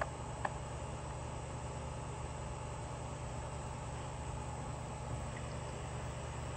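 A steady low engine hum in the background, with a couple of faint clicks near the start.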